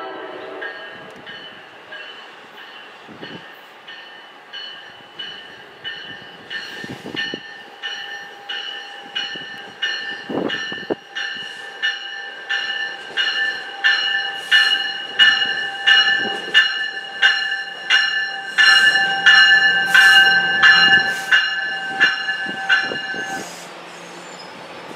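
NJ Transit Multilevel cab car's bell ringing steadily at about one and a half strikes a second as the train approaches, growing louder as it nears and stopping suddenly about 23 seconds in. The tail of a horn blast sounds at the very start.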